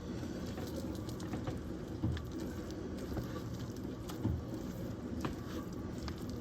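Crumbled cornbread dressing being stirred and mixed in a pan: soft, crumbly pattering with a few dull knocks spaced a second or two apart.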